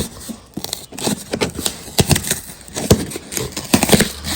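Cardboard box tabs being pried and pulled at, crackling and ticking irregularly as the glued cardboard resists.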